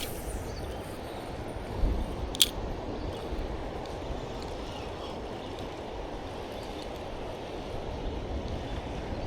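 River current rushing steadily, with a single sharp click about two and a half seconds in.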